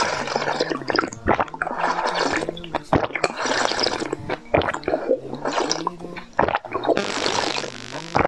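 Close-up slurping of a seed-filled drink through a glass drinking straw: repeated wet sucking draws with sharp clicks between them.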